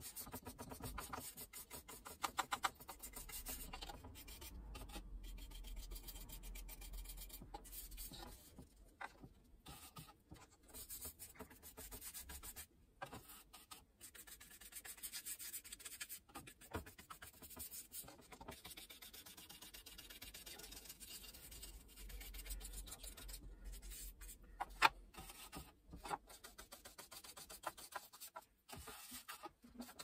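A paintbrush's bristles rubbing and scratching over a wooden box as liquid finish is brushed on, in faint, quick repeated strokes with the odd tap of the brush or box on the bench.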